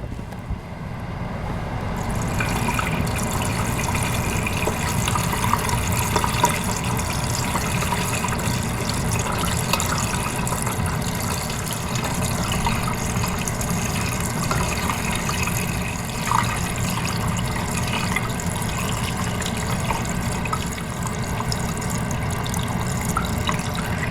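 Windshield washer fluid pouring steadily from a punctured container into a Tesla Model 3's washer fluid reservoir, building up over the first couple of seconds and then running evenly as the reservoir fills.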